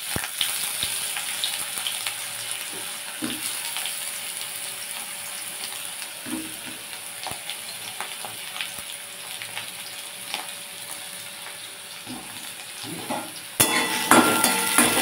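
Sliced potatoes sizzling in mustard oil in a metal kadai: a steady frying hiss with small crackles. Near the end it gets louder as a metal spatula stirs and scrapes the slices around the pan.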